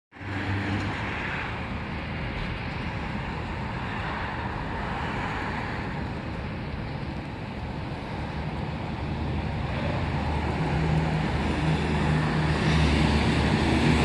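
Road traffic noise, with a vehicle engine growing louder in the last few seconds. No siren tone is sounding.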